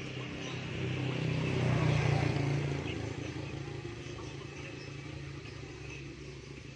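A vehicle engine going past: a low hum that swells to its loudest about two seconds in, then fades away.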